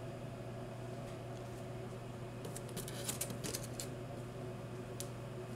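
Plastic-bagged comic books rustling and sliding against each other as a hand reaches in among them in a cardboard comic box, with a quick run of crinkly ticks from about two and a half seconds in and one more near the end. Under it a steady low hum.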